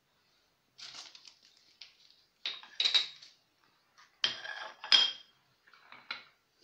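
Kitchen bowls and dishes clinking and knocking against each other and the stone countertop, in four short clusters, loudest about three and five seconds in.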